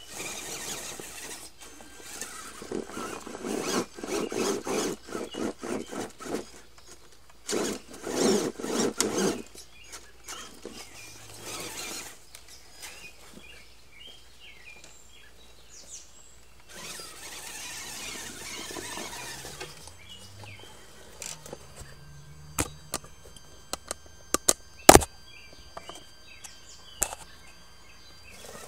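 Electric RC monster truck (Traxxas E-Maxx) driving over rocks and dirt: uneven bursts of motor and gear whine with the tyres scrabbling, rising and falling in pitch. In the second half come sharp clicks and knocks, the loudest a few seconds before the end.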